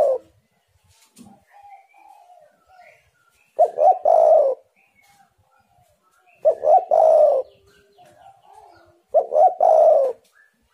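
Spotted dove (tekukur) cooing loudly, its song phrase of two short notes and a longer falling coo repeated three times, about every three seconds. Fainter bird calls are heard between the phrases.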